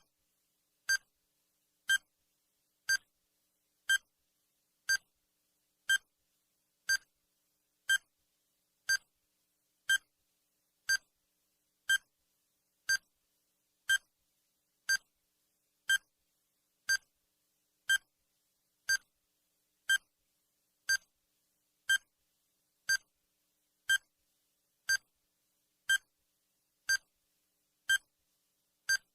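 Countdown timer's per-second sound effect: a short electronic beep once every second, each one the same, with silence between.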